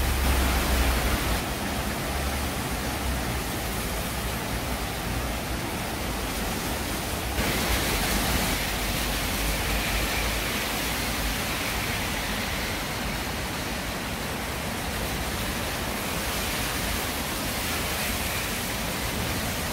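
Steady rushing noise of a flood-swollen stream and heavy rain, with a low rumble underneath in the first half; the sound shifts abruptly a couple of times between shots.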